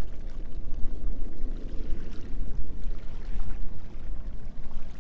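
Wind rumbling on the microphone with water splashing and pouring around a small fishing boat.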